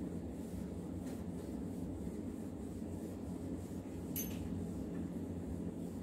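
A whiteboard being wiped clean with a cloth duster: soft rubbing strokes, with one brief sharp scrape about four seconds in, over a steady low room hum.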